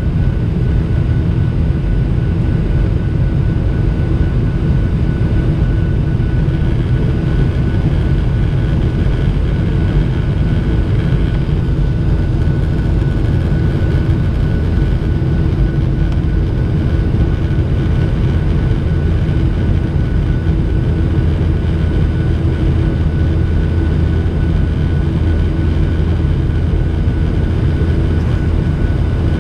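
Steady cabin noise of a Boeing 737-800 heard from an over-wing window seat during climb: the low rumble of its CFM56 turbofan engines and rushing air, with a faint steady high whine on top.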